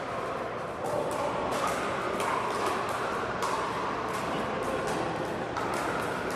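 Pickleball paddles popping against plastic balls on neighbouring courts, several sharp pops a second at irregular times, echoing in a large indoor hall over a steady background din.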